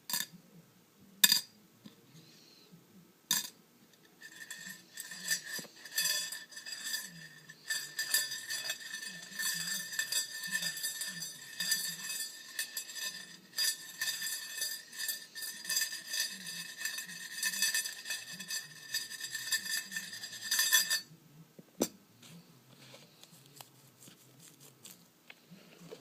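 A few sharp taps, then a long stretch of dense clinking and rattling of small hard objects with a glassy ring, which stops suddenly near the end and is followed by a quieter patch with a single click.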